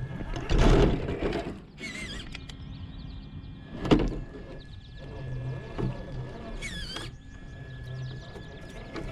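Traxxas TRX-4 RC crawler's electric motor and gears running in short bursts as it crawls, with a loud scraping thunk about a second in and a sharp knock about four seconds in. Birds chirp now and then in the background.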